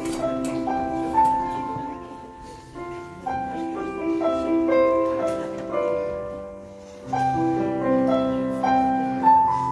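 Piano playing a slow instrumental piece, a melody over held chords.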